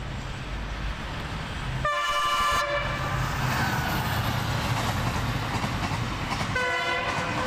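Express passenger train passing at speed: its locomotive horn sounds twice, a short blast about two seconds in and a longer one near the end, over the steady rumble of the locomotive and coaches on the rails, which grows louder as the train arrives.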